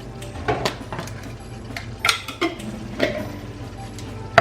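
Spoon clinking and scraping against a mixing bowl while ricotta cheese filling is stirred, with a few sharp clinks spaced about a second apart and the loudest at the end.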